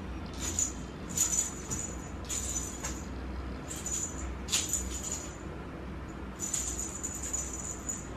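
Small bell on a cat toy jingling in short bursts, about six times, as the toy is shaken and waved.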